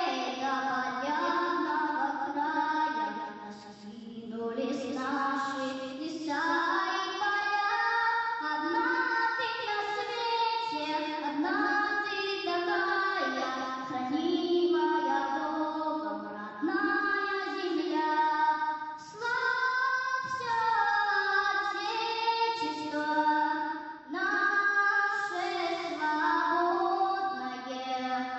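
A high, young-sounding voice singing a song with musical backing, phrase after phrase, with brief breaths between lines.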